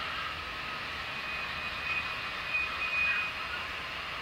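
Simulated GE diesel engine sound from the Tsunami sound decoders in HO scale Atlas U30C and U23B locomotives, played through small onboard speakers: a steady engine drone with a thin high tone held from about a second in until past three seconds.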